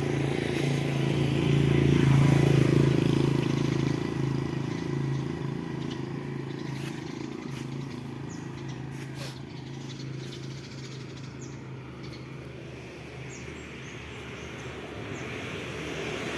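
A motor vehicle engine running steadily nearby. It grows loudest about two seconds in, then slowly fades away.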